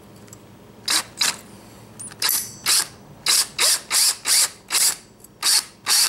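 Cordless drill run in about a dozen short bursts, its bit grinding into a metal washer as it drills a hole through it.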